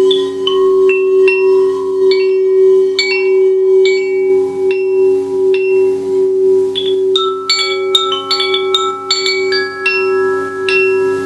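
Meditation sound-healing instruments: a steady two-tone singing-bowl drone under scattered high struck chime notes that ring and fade, becoming busier in the second half.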